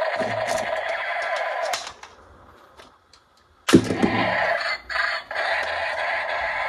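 Background music that cuts out for about two seconds, then comes back with a sudden loud hit and two brief dropouts.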